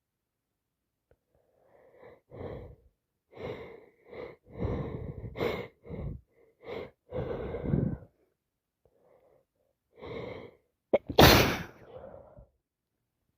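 A person with a head cold taking a run of short, uneven breaths, then sneezing once loudly about eleven seconds in.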